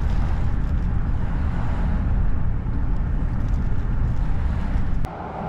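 Steady low rumble of road and wind noise in a slowly moving car, cut off sharply near the end.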